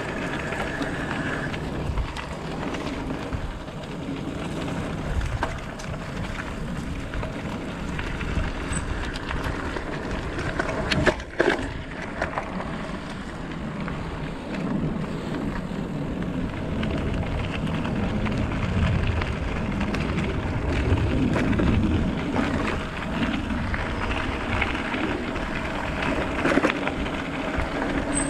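Bicycle riding over a dirt trail: tyre and wind noise with scattered clicks and knocks from bumps, the loudest a sharp pair of knocks about eleven seconds in.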